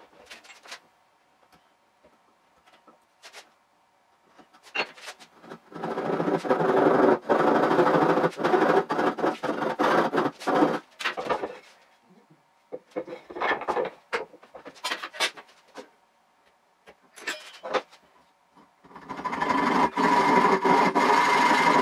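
Hand sawing with a backsaw through a wooden workpiece, sped up so the strokes run together into a fast, machine-like rasp. It comes in a long run about a quarter of the way in, a few short bursts mid-way, and another long run near the end, with light knocks and taps of wood and tools in between.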